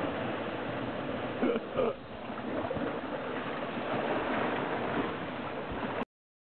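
Steady rushing noise of surf and water, with two short louder sounds about one and a half and two seconds in; it cuts off abruptly about six seconds in.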